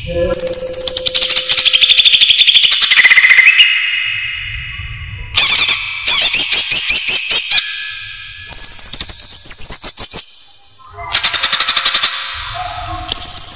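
Cucak ijo (green leafbird) song played as a bird-lure call. It comes as loud bursts of rapid, chattering repeated notes and trills, some sweeping down in pitch, with short pauses between the bursts.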